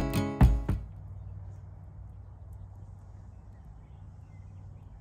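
The last hits of an electronic intro music sting ring out and fade within the first second. Then only quiet outdoor background remains, with a low steady hum.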